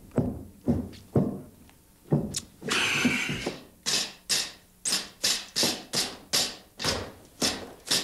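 Repeated pounding knocks of a rod driven down into a bucket, mashing pig brains into a soup. The strokes come about every half second at first, then quicken to about three a second after a brief rushing noise about three seconds in.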